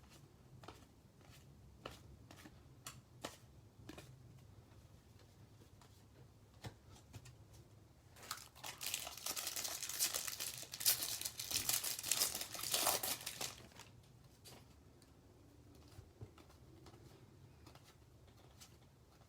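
Plastic wrapper of a baseball card pack being torn open and crinkled for about five seconds, starting about eight seconds in, with light clicks and taps of cards being handled before and after.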